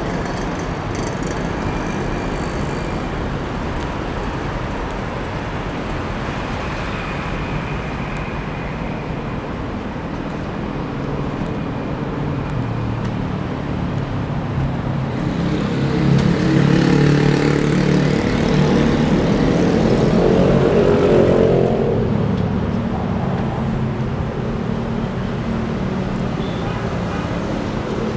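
Steady road traffic noise, with one vehicle passing louder for several seconds a little past the middle.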